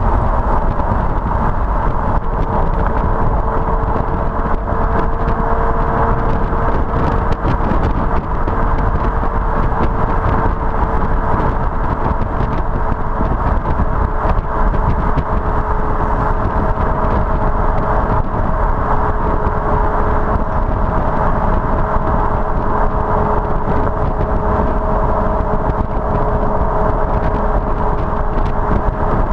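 BMW M5 E61's V10, on its standard rear silencers, gives a steady exhaust drone at an even cruising speed. It sits under a loud, constant rush of tyre and wind noise picked up by a camera mounted low on the car.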